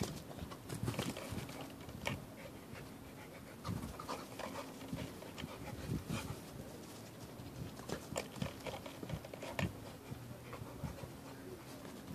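Dog panting as it jumps and snaps at bubbles, with scattered short sharp clicks.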